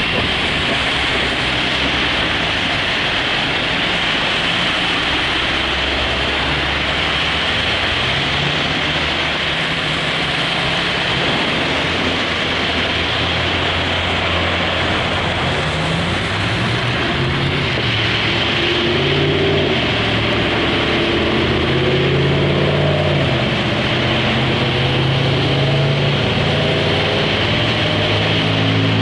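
Car on the road: steady road, wind and engine noise, with the engine's pitch shifting up and down in small steps in the second half.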